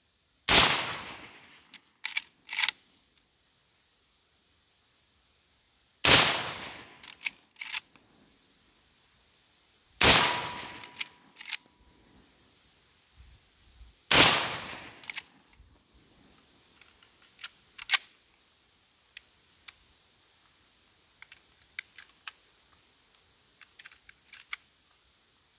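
Four shots from a Winchester Model 1894 lever-action rifle in .30-30, about four seconds apart, firing handloaded cartridges. After each shot the lever is worked with a pair of metallic clacks to eject the empty case and chamber the next round. After the last shot come scattered small metallic clicks from handling the action.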